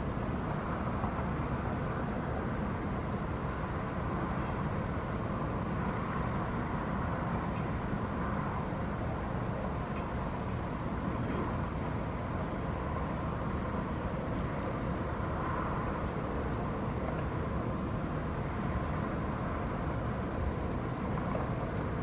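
Steady outdoor background rumble with a faint hum, from distant city traffic and construction-site activity.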